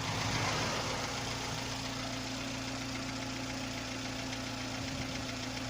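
VW Polo 6N1 engine idling with a fast, steady rattle, which the owner suspects comes from the hydraulic lifters, the distributor or a shaft.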